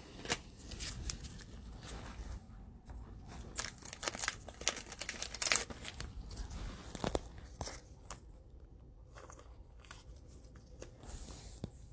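Soft crinkling and rustling of a plastic trading-card pack wrapper and a stack of cards being handled, with scattered light clicks and taps.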